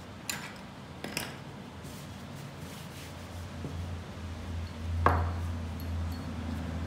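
Hand handling on a craft work table: a few light clicks and taps, then a single sharper knock about five seconds in, over a low handling rumble as the hand rests on the surface.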